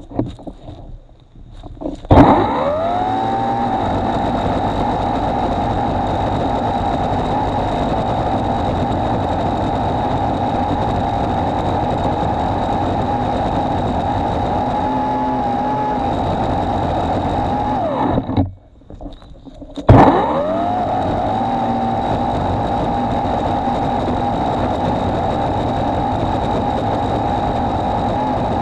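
EGO Power+ PH1400E battery multi-tool power head driving its chainsaw attachment: the motor and chain spin up with a rising whine about two seconds in and run at a steady high speed. Near eighteen seconds the trigger is released and the saw stops for a moment, then it spins up again and keeps running.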